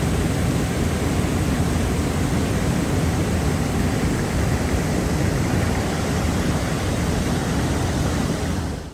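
Steady roar of fast-rushing river water and waterfall, cutting off abruptly near the end.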